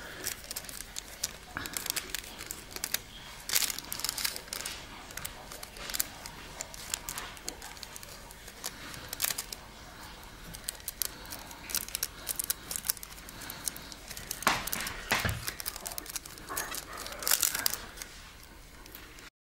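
Thin nail transfer foil crinkling and crackling in short, irregular rustles as fingers press it onto a nail and peel it away.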